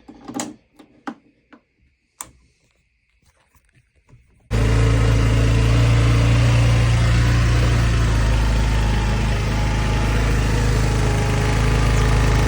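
GY6 150cc scooter engine on its stock exhaust: a few faint clicks, then about four and a half seconds in the engine comes in suddenly and runs steadily at idle, cold and warming up.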